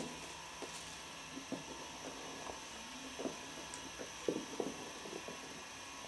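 Kittens romping: soft thuds and taps from paws landing and batting on carpet and scratching pads, with a cluster of louder knocks about four seconds in, over a steady background hiss.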